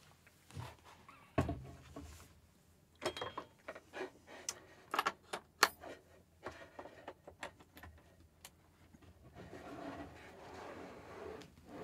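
Handling noise of a large studio monitor speaker being lifted and set in place: a dull thump about a second and a half in, then a run of sharp clicks, knocks and light rattles, and softer rustling near the end.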